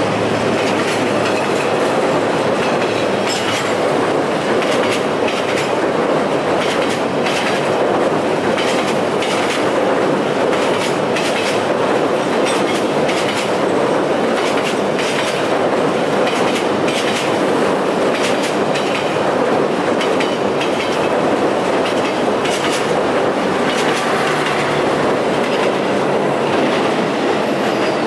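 SE4 passenger train's coaches passing close by at speed: a steady loud rumble with many sharp clacks of the wheels over rail joints.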